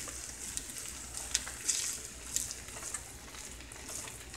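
Shrimp fried rice with egg sizzling steadily in a wok, with a few light clicks.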